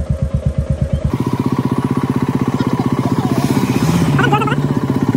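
Motorcycle engine idling with a quick, even pulse. About a second in the beat changes and a steady higher-pitched tone joins it. Brief voices sound near the end.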